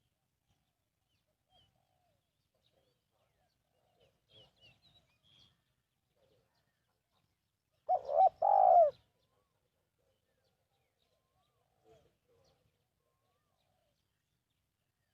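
Spotted dove cooing once about halfway through: a short note then a longer, lower coo lasting about a second. Faint high chirps from small birds come a few seconds before it.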